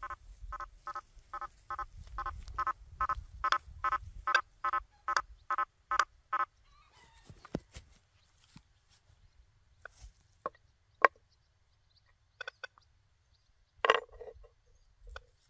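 Quest V80 metal detector giving a fast run of short, evenly spaced beeps, about four to five a second, as its 9-inch coil passes over a nailboard test. The beeping stops about six seconds in, and only a few scattered short chirps and clicks follow.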